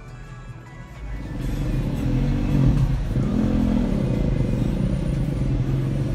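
A car engine comes up about a second in, revs up and down, then runs steadily.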